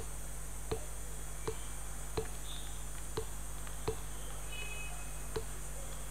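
Computer mouse clicking: seven single sharp clicks, most under a second apart, as anchor points are placed one by one with a pen tool. A steady low hum and hiss of recording noise runs underneath.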